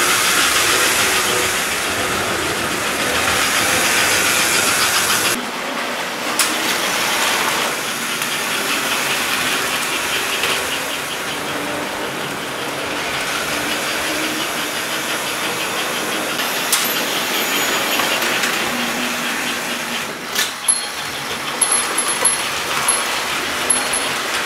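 American Flyer S-gauge toy trains running on the layout: a steady whirring hiss of the locomotive motors and wheels on the rails, with a few sharp clicks later on.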